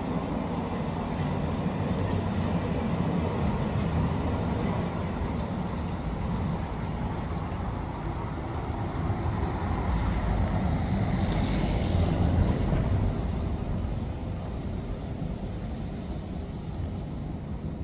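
Low, steady rumble of city traffic. It swells to its loudest about ten to thirteen seconds in, as if a vehicle passes, then eases off.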